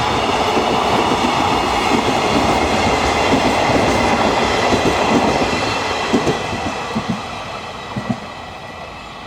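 Train rolling past on jointed track, wheels clattering over the rail joints. The rolling noise fades in the second half, with a few last sharp clacks about six to eight seconds in as the end of the train goes by.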